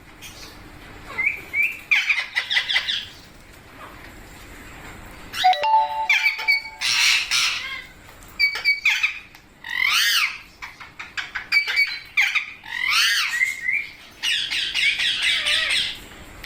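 Rose-ringed parakeet squawking: shrill calls in repeated bursts of a second or two, with short pauses between them.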